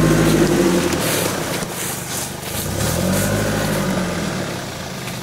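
Toyota off-road 4x4's engine revving up and dropping back twice, at the start and again about three seconds in, as it crawls over a log and through deep ruts.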